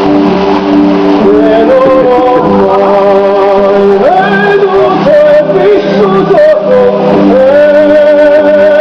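Loud music with a male singing voice, held notes over a sustained backing.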